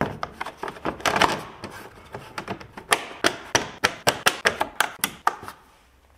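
Hand work fitting a vehicle grille: rustling handling noise, then a quick run of about ten sharp clicks and knocks, roughly three a second, ending a little over five seconds in.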